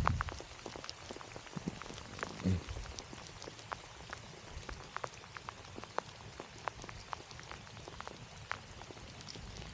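Rain falling steadily, with many sharp, irregular raindrop ticks close by. Two dull low thumps, one at the start and one about two and a half seconds in, are the loudest sounds.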